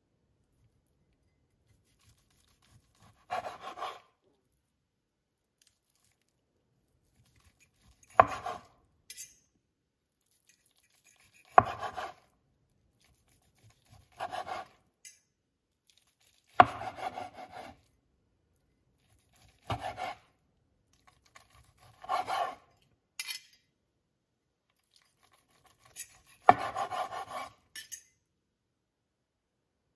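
A knife sawing through a cooked pork loin on a bamboo cutting board: eight separate cuts a few seconds apart, each about a second long, several starting with a sharp click against the board.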